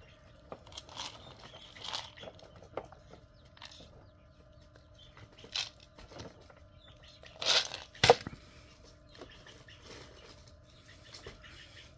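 Scattered, faint chirps from a buff-laced Polish chicken kept in the house, with a few sharp clicks, the loudest about eight seconds in, over a faint steady hum.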